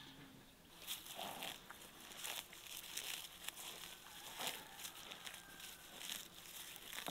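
Cow cropping grass: a run of crisp tearing and crunching sounds, several a second and irregular, as it rips and chews mouthfuls. It starts about a second in.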